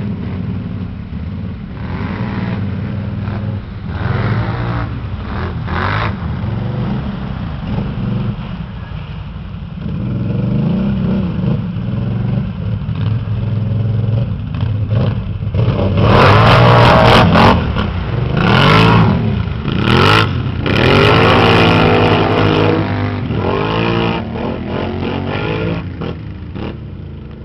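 ATV (quad) engines running and revving, with pitch rising and falling. The revving is loudest for several seconds past the middle.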